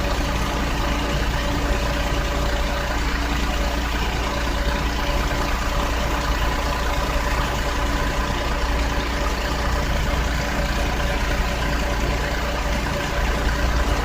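Nissan Otti (H91W) 660 cc three-cylinder engine idling steadily, with a steady whine over the running: the abnormal noise from the engine compartment.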